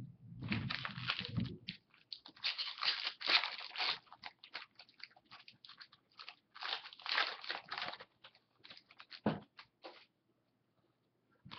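Foil wrapper of a hockey card pack crinkling and crackling as it is handled and torn open, in quick irregular clusters; it stops about ten seconds in.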